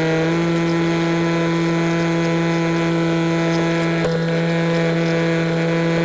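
Electric motor and propeller of an EasyStar FPV foam plane running at steady high throttle, heard from the onboard camera. It makes a steady whine whose pitch steps up slightly just after the start.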